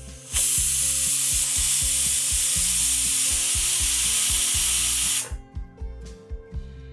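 Pressure cooker whistling: the weight on the vent lifts and steam jets out with a loud hiss, starting about half a second in and cutting off suddenly after about five seconds, the sign that the cooker has reached full pressure.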